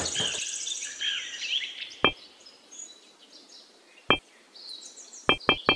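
Birds chirping for the first couple of seconds, then two single sharp ticks a couple of seconds apart. Near the end a quick, even run of ticking notes starts, the opening of background music.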